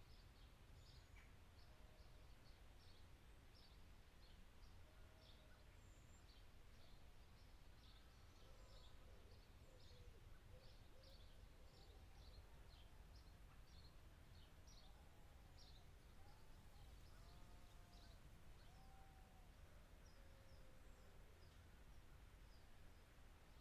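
Faint birdsong over a low background rumble: many short, high chirps throughout, with lower, arching calls in the middle.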